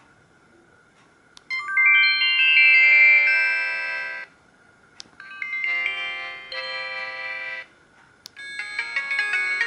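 Samsung SGH-E900 mobile phone playing its built-in ringtones one after another. Each is a short melody of several notes at once that stops after two or three seconds, and a small click comes just before each one starts. Three ringtones start in turn, the last still playing at the end.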